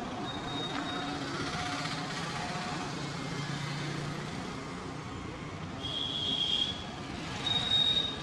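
Steady street traffic noise with faint voices, and a vehicle horn sounding twice near the end, two short high beeps.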